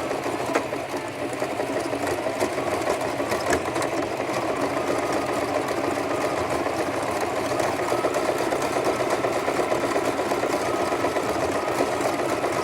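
Sewing machine running steadily at a fast, even stitching rhythm, sewing two hair weft tracks together; it runs real smooth.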